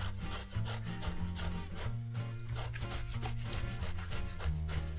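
Boiled beetroot being grated on a coarse grater: repeated rasping strokes at an even pace.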